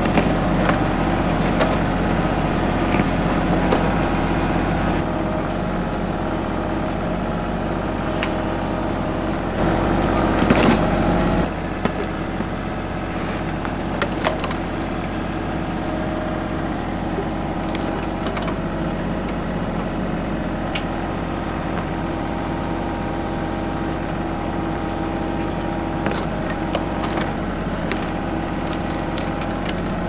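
TYM 2515H compact tractor's diesel engine running steadily while its backhoe digs out a tree root, with scattered cracks and knocks from the bucket working the root and soil. The engine sound steps down a little about eleven seconds in.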